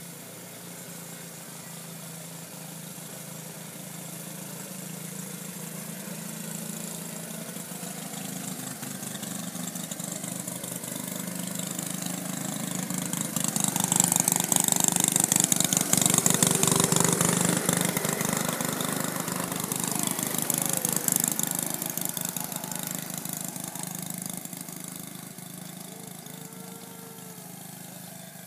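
Small engine of a ride-on miniature diesel-style locomotive running as the train approaches, passes close by about halfway through, and fades away. A rapid clatter is loudest as it goes past.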